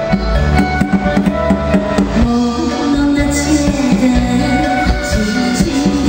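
Live band playing a Mandarin pop song with a steady drum-kit beat, amplified over a stage PA. A wavering melody line, likely the singer's voice, comes in over the band about two seconds in.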